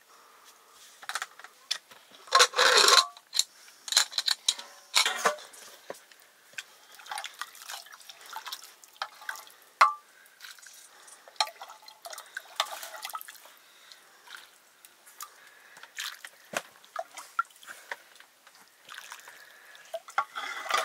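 Kitchen work with water and metal cookware: irregular splashing and dripping mixed with clinks and knocks of pots and utensils, the loudest splash about two and a half seconds in.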